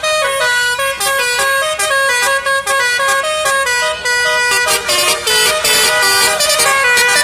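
Telolet bus horn, a multi-tone musical air horn, playing a fast tune of short stepped notes, loud and continuous.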